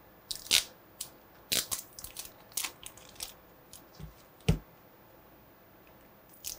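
Clear plastic wrapping crinkling and crackling in short sharp snaps as it is pulled and peeled off a mini laptop, with two dull thumps about four seconds in.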